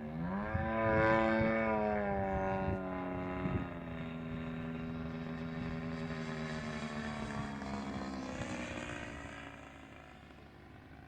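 Radio-controlled model airplane engine running, its pitch dipping briefly at the start and then holding steady before growing fainter near the end.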